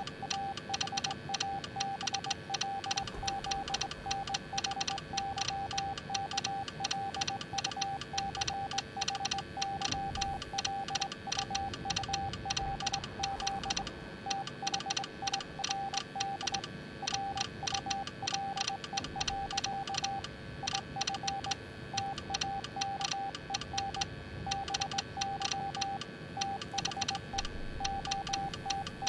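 Morse code sent as a single steady beep tone, keyed on and off in short and long elements with brief pauses between groups. A fast, even clicking runs alongside it.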